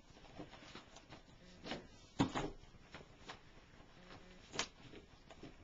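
A cat clawing and biting at a spiral notebook's cover on carpet: irregular scratches and papery scuffs, the loudest a little over two seconds in and again past four seconds.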